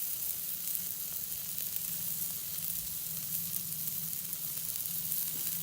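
Food sizzling steadily on a hot grill, with faint ticking crackles.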